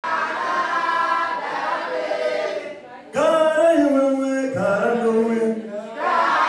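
Several voices singing together in harmony. The sound dips just before three seconds, then comes back suddenly and loud with long held notes that step down in pitch.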